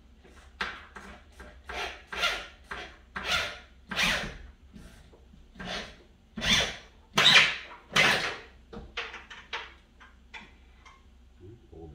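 Power drill driving a screw through a 2x8 board into a wall stud, run in about twenty short trigger bursts, loudest around the middle and shorter and quicker near the end as the screw seats.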